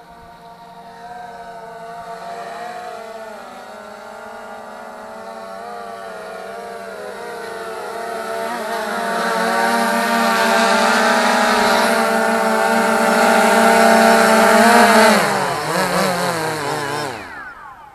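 DJI Phantom 3 quadcopter's motors and propellers whining as the drone flies in closer, growing louder. About three seconds before the end the motors are shut off and the whine falls in pitch as the propellers spin down to a stop.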